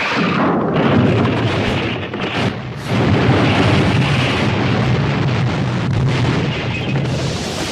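A loud anime sound effect from the Eva Unit 01 set. It is a dense rumbling, explosion-like noise that starts suddenly, dips briefly about two to three seconds in, and then carries on.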